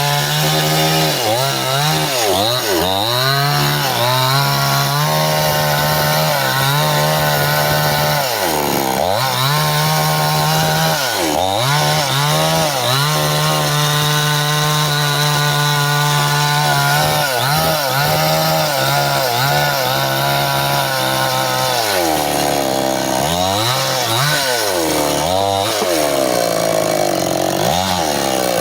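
Stihl two-stroke chainsaw cutting into bendo wood. The engine speed repeatedly drops and picks back up as the chain bites, with long stretches held steady at high revs.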